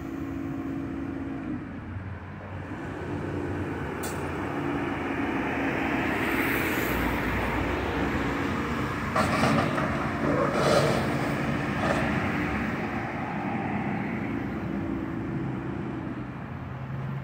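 Heavy diesel demolition machinery, an excavator and a loader, running steadily, with passing road traffic swelling louder through the middle. Some clattering comes about halfway through.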